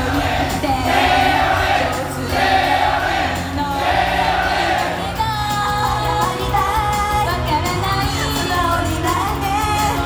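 Live J-pop idol song over a concert PA: a pop backing track with group voices in repeated bursts, then from about five seconds in a female voice singing a clear solo line over the music.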